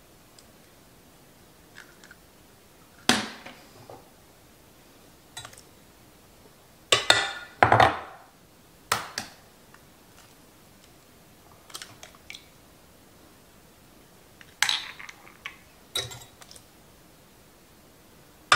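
Eggs being cracked one at a time over a glass measuring cup, with shells set down in a small dish: scattered sharp taps and clinks of eggshell on glassware. The loudest taps come about seven to eight seconds in.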